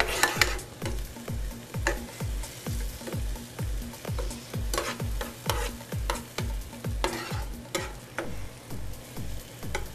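Chopped onion and garlic sizzling in olive oil in a nonstick skillet while a spatula stirs and scrapes through them, with a few sharper scrapes against the pan. A steady low beat of background music thumps about three times a second underneath.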